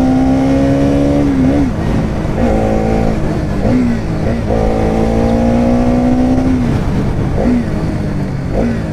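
Bajaj Pulsar NS200's single-cylinder engine pulling under throttle while riding, its pitch climbing slowly through two long pulls, with short sharp dips in pitch between them and near the end.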